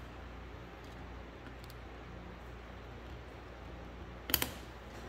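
A low steady hum, then a quick cluster of small metallic clicks about four seconds in as snap-ring pliers work a wrist-pin snap ring into a John Deere A piston.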